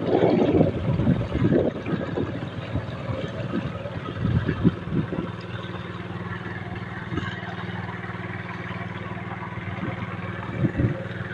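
A small outrigger boat's engine running steadily under way, a low even drone, with louder irregular noises over the first few seconds and once more near the end.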